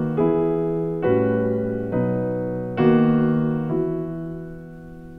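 Background music: slow piano chords in an instrumental gap between sung lines of a gentle ballad, struck about once a second and each left to ring and die away, growing quieter toward the end.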